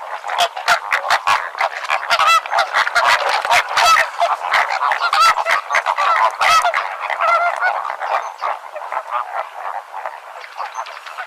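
A flock of flamingos honking: many short, goose-like calls overlapping in a dense chorus that thins out and grows quieter over the last few seconds.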